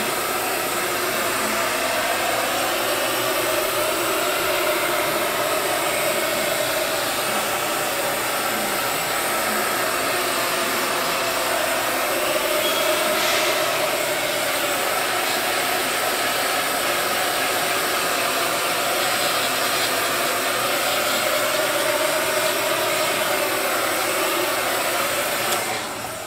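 Heat gun running steadily: a blowing hiss with a slightly wavering motor hum, switched off near the end. It is heating the edges of a vinyl graphic to soften it and lock the adhesive down.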